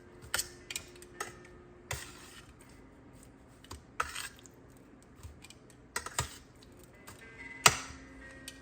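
Scattered sharp knocks and clinks of kitchen utensils and containers handled on a counter, about eight in all at uneven intervals, the loudest about three-quarters of the way through.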